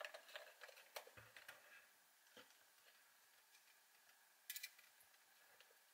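Near silence with a few faint clicks and taps from handling an Instax Wide 300 camera body and a small screwdriver. A short cluster of sharper clicks comes about four and a half seconds in.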